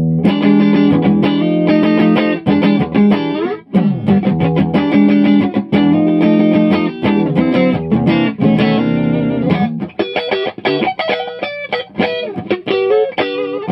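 Electric guitar played through a modified Bell & Howell Filmosound projector amplifier with its presence circuit switched on, which adds gain and hiss. Ringing chords are strummed for about the first ten seconds, then a run of quicker single notes follows.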